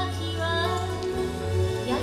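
Japanese song with a woman singing long, wavering notes over a steady low accompaniment.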